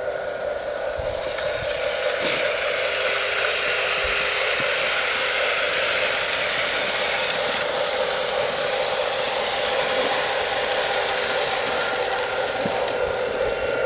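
LionChief RS3 model diesel locomotive running on garden railway track, its motor and gears whirring with the wheels clattering on the rails. It grows louder over the first couple of seconds as the train comes closer, then runs steadily, with a few sharp clicks along the way.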